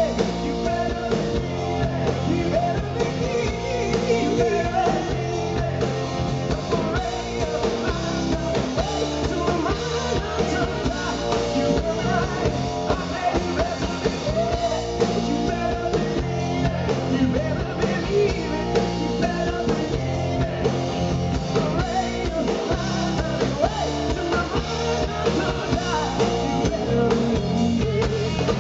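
Live rock-and-roll band playing: a male singer's lead vocals over electric guitar, bass guitar and a drum kit keeping a steady beat.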